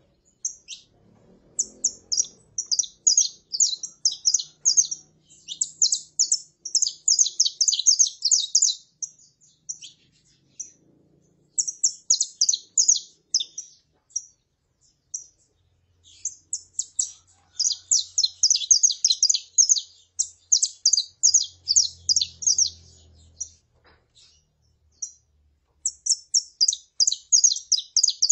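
Saffron finches singing and calling: quick, high chirping notes in about four phrases of several seconds each, separated by short pauses.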